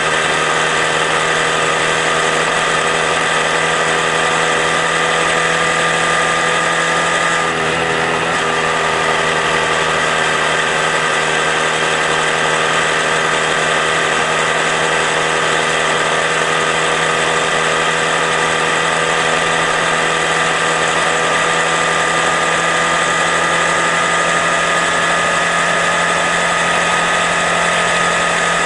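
Honda Grom's 125cc single-cylinder engine running at a steady cruising speed, a high-pitched steady drone with a brief break in the note about seven seconds in.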